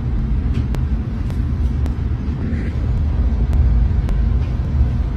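Steady low rumble with faint clicks at roughly even spacing.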